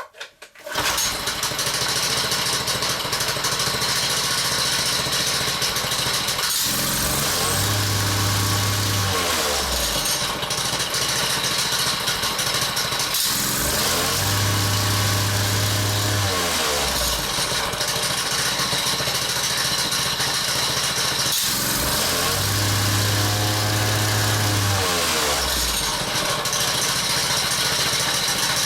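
Honda petrol engine on a vibrating plate compactor starting about a second in, then running at tickover with the centrifugal clutch fitted, revved up three times so that the clutch engages and the plate vibrates. The clutch is loose on the engine shaft with a worn woodruff key, which gives a tinkling at tickover that is masked when the engine is revved.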